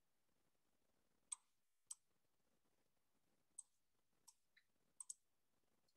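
Near silence with about six faint, sharp computer mouse clicks at irregular intervals, the last two in quick succession.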